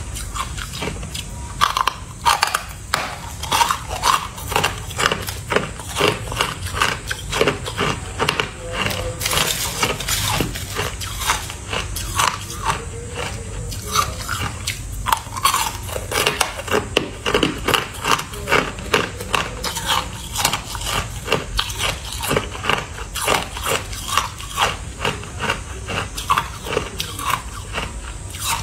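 Biting and chewing lumps of frosty white ice: a dense, continuous run of sharp crunches and cracks, several a second.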